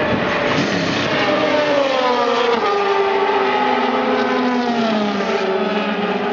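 A racing car's engine running past, its note falling slowly over a few seconds.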